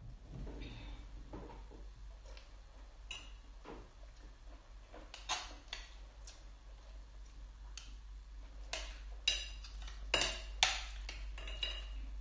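Metal fork and spoon clinking and scraping against a glass bowl of rice porridge in scattered taps, busiest and loudest about nine to eleven seconds in.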